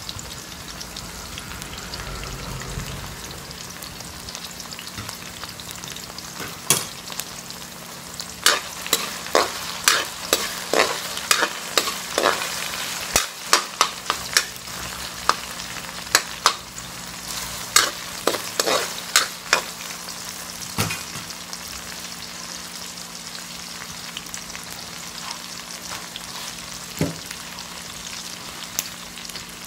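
Sliced okra sizzling steadily in hot oil in a wok. From about seven seconds in to about twenty, a spatula stirring it knocks and scrapes against the pan in a run of sharp clicks, with one more knock near the end.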